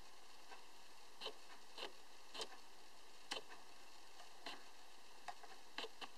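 About eight faint, irregular clicks and taps as a tin-and-plastic toy ship is handled, over a steady low hiss.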